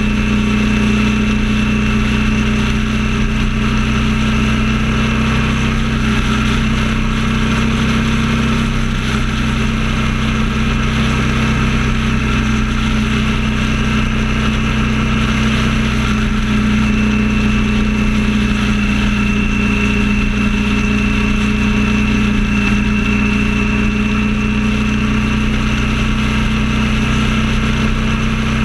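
Vehicle engine droning steadily at constant highway cruising speed, with continuous road and wind noise.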